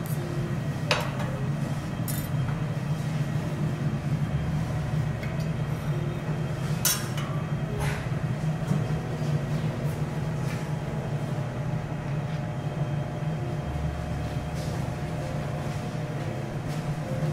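A steady low hum in a restaurant, with a few light clinks of tableware: one about a second in and two more around seven and eight seconds in.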